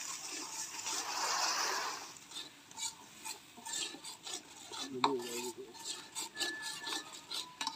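Spatula stirring and scraping a spice paste frying in a metal karahi: a sizzling hiss for about the first two seconds, then a run of scrapes and clicks as the spatula knocks against the pan. This is the masala of onion, chilli, ginger, garlic and cumin paste with turmeric being fried down.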